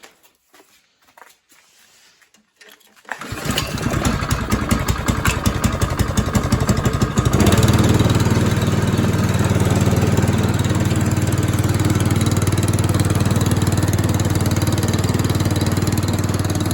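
Snowblower's small four-stroke engine starting about three seconds in, running unevenly for a few seconds after being primed, then settling into a steady run.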